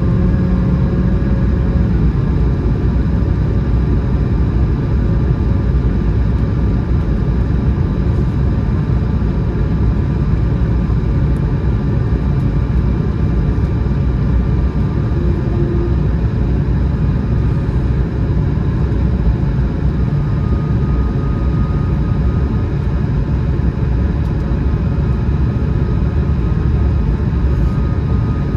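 Airbus A220-100 cabin noise in flight: a steady rumble of airflow and the Pratt & Whitney PW1500G geared turbofan engines, with faint steady whining tones above it.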